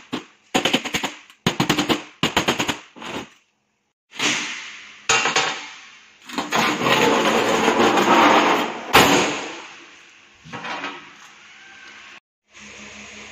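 Short bursts of rapid crackling ticks, each cut off abruptly. Then a large stainless steel sheet is handled, rumbling and rattling as it flexes, and is set down on a metal bench with a sharp clang about nine seconds in.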